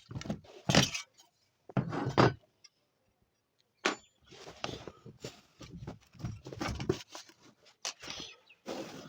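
Irregular knocks, clicks and short scrapes of hard parts and tools being handled, with the loudest knocks about a second and two seconds in.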